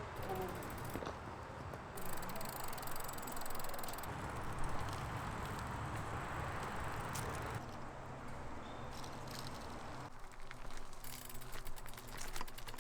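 Steady road and engine noise heard from inside a moving car, changing abruptly a few times between short clips, with some light rattling clicks near the end.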